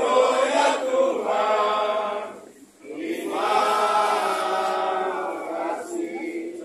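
A crowd chanting together in long, held phrases, with a brief pause about two and a half seconds in.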